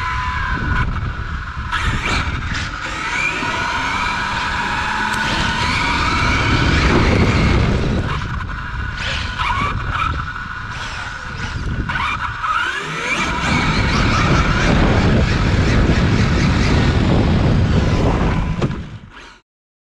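Onboard sound of a 1/8-scale 6S electric on-road RC car: its brushless motor whines up and down in pitch with the throttle, over steady tyre and road noise. It cuts off suddenly near the end.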